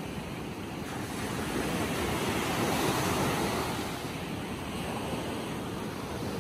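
Surf breaking and washing up a sandy beach, swelling to its loudest about halfway through, with wind on the microphone.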